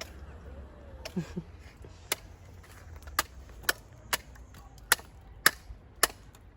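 A machete chopping open a green jelly coconut: about seven sharp, separate strikes starting about two seconds in, over a steady low rumble.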